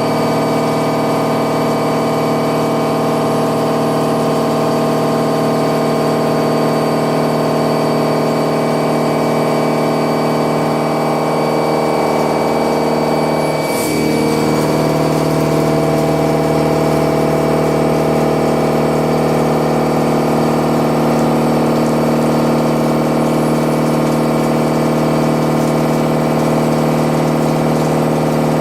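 Milling machine cutting metal with an indexable-insert milling cutter, a steady machine sound made of several fixed tones. About halfway through there is a short click and a quick swoop in pitch, after which the sound settles at a slightly different, somewhat louder tone.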